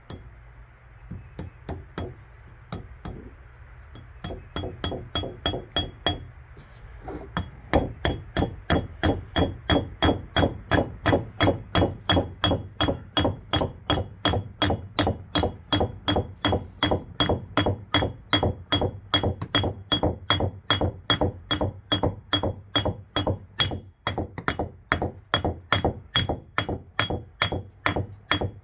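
Hand hammer striking metal again and again with a short metallic ring on each blow. It starts with a few scattered blows and settles after about four seconds into a steady rhythm of roughly two to three blows a second.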